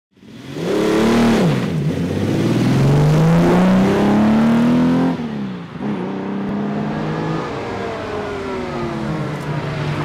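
Holden Torana GTR XU-1's straight-six engine revving hard under acceleration, its pitch climbing, dropping at a gear change and climbing again. After a break about five seconds in, the engine is heard further off, its pitch easing down and then holding steady as the car approaches.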